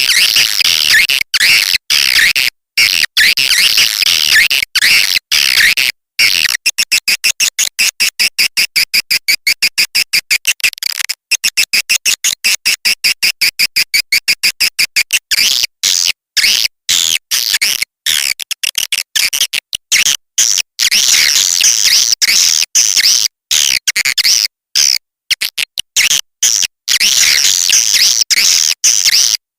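Recorded swiftlet lure call: edible-nest swiftlets chirping and twittering in high, shrill bursts, looped and cut with abrupt silent gaps. A fast run of repeated chirps fills the middle stretch.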